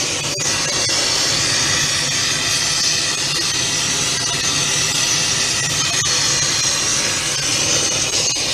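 Oxy-fuel gas torch flame hissing steadily while it heats brass, with a low rumble under the hiss and a few faint ticks.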